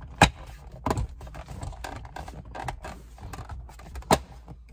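Plastic console trim pieces being handled and pressed back together: a few sharp clicks and knocks, the loudest about a quarter second in, another about a second in and one more near the end, with light handling noise between.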